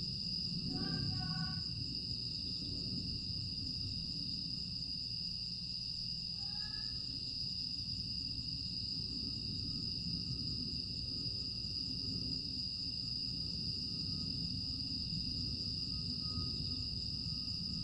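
A night chorus of crickets and other grass insects makes a continuous high-pitched trilling. Brief chirps come about a second in and again near seven seconds, over a steady low rumble.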